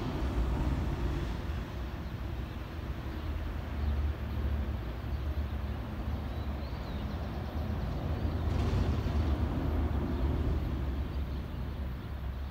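Low rumble of traffic crossing the road bridge overhead, swelling twice as heavier vehicles pass.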